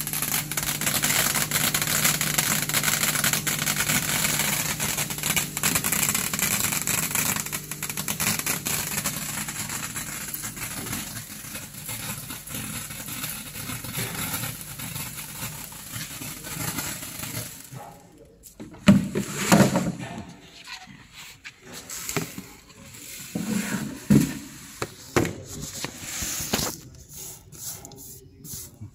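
Glass colour sorting machine running: a steady hum under a dense hiss and crackle of crushed glass cullet streaming through it. The noise fades gradually, and about two-thirds of the way through gives way to a quieter stretch with scattered knocks.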